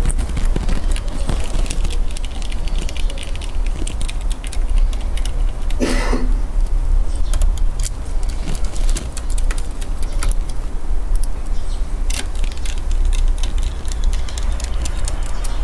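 Scattered small clicks and light rattling of laptop parts and screws being handled, over a steady low rumble, with a brief rushing noise about six seconds in.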